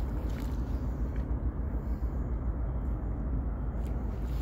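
Caledonian MacBrayne car ferry's engines giving a low, steady drone as the ship passes close by.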